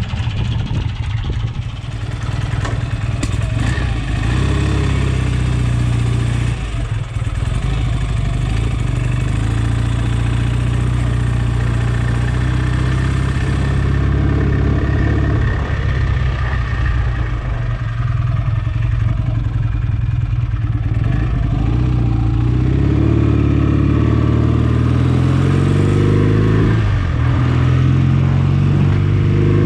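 Freshly rebuilt BSA A65 Lightning's 650 cc parallel-twin engine running as the motorcycle is ridden, its engine speed rising and falling through the gears, most plainly in the second half.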